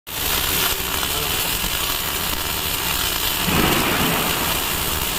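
Electric arc welding: a steady crackling hiss, with a brief heavier surge about three and a half seconds in.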